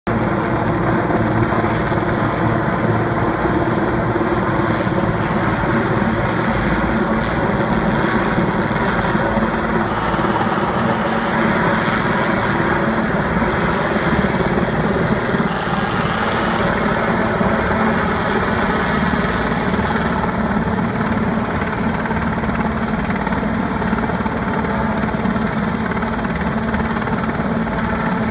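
Sikorsky S-61 heavy-lift helicopter flying over with a long line slung beneath it, its rotor and turbine engines running steadily and loudly throughout.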